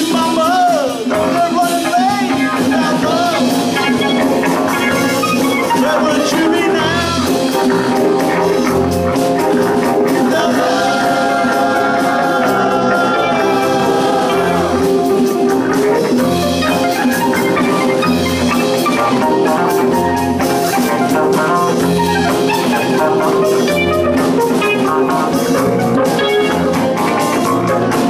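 Band music playing steadily, with drums, bass and pitched instruments.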